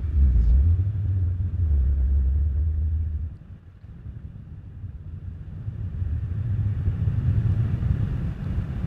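Low wind rumble buffeting a headset microphone on a moving e-bike. It drops away sharply about three seconds in, then slowly builds back up.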